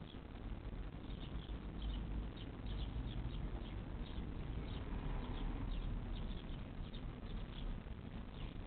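Young animals in a nest squeaking: short, high, thin squeaks a few times a second, over a low steady rumble.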